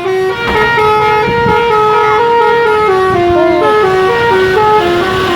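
A bus's 'telolet basuri' musical air horn playing a tune: a run of held horn notes stepping up and down in pitch, one after another without a break.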